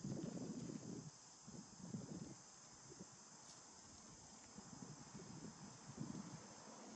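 Faint steady high-pitched drone of insects, with a low irregular rumble, most likely wind on the microphone, that is heaviest in the first second and comes and goes after.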